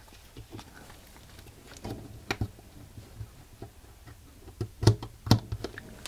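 Scattered small clicks and taps from fingers handling a carbon monoxide detector's circuit board, the sharpest about two seconds in and two more near the end.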